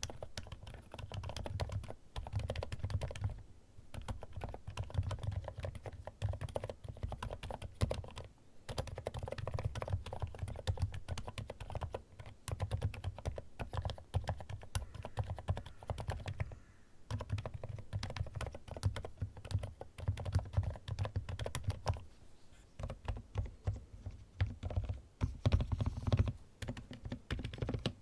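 Typing on a Weikav D75 mechanical keyboard: fast runs of keystrokes with a deep low thud under each click, broken by short pauses every few seconds.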